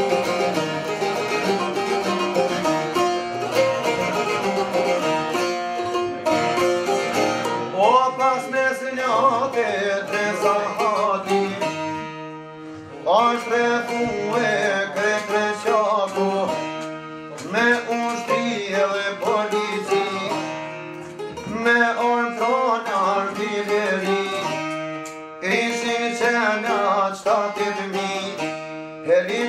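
A man singing an Albanian folk song in phrases of a few seconds, accompanied by strummed çifteli and sharki (long-necked plucked lutes), with short pauses between sung lines.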